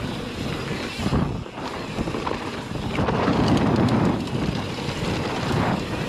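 Downhill mountain bike descending a dirt trail at speed: a steady rumble and rattle from the tyres and bike, with wind rushing over the microphone.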